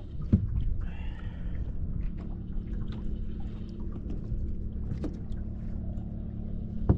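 Steady low hum of an electric bow-mount trolling motor holding the bass boat in place on Spot-Lock, under the wash of choppy water. A few sharp knocks on the boat, the loudest near the start and just before the end.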